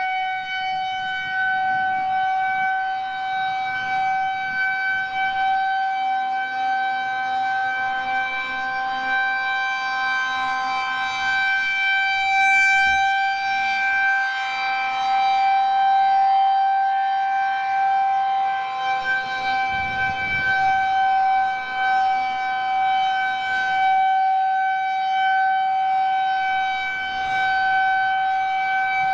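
Federal Signal 2001-130 electromechanical warning siren sounding a steady test tone, held at one pitch with rich overtones and slowly swelling and fading in loudness as the siren head rotates.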